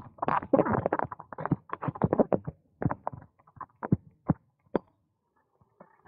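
Bicycle rattling and knocking as it rides over uneven paving. The knocks are irregular, dense at first and thinning out, with a brief lull near the end.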